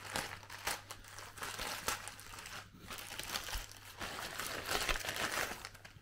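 A grey plastic mailer bag being crumpled and crinkled by hand as it is pulled open, with irregular crackles throughout.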